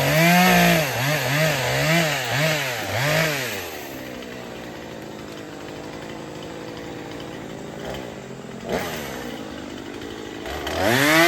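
Two-stroke chainsaw revved in a quick series of about six throttle bursts, then dropping back to idle for several seconds, with a short blip, before revving up again near the end.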